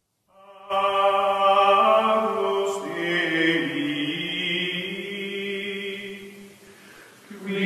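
Choral chant music: voices holding long sustained notes in chords, starting after a brief silence. The notes shift in pitch midway, fade down, then swell again near the end.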